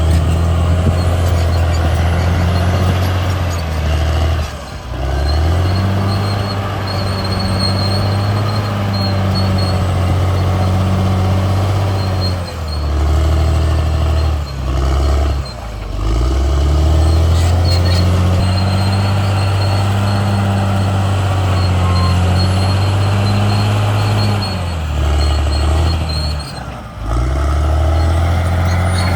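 Caterpillar D6R XL bulldozer's diesel engine running under load, its low note rising and falling in steps as the machine works, with a few brief drops in level and a faint high whine on and off.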